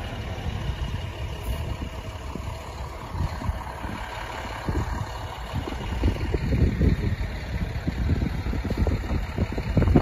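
Diesel engine of a heavy snowplow dump truck running with a low rumble, getting louder in the second half.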